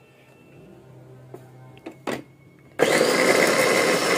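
Preethi electric mini chopper: a plastic click as the motor head is fitted, then nearly three seconds in the motor starts with a quick rising whine and runs loud and steady, chopping onion.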